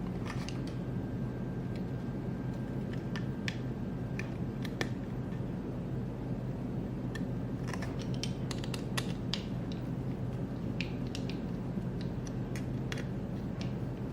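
Scattered small clicks and light scrapes of hand assembly: screws and motor mounts being handled and screwed onto a 3D-printed quadcopter frame, over a steady low hum.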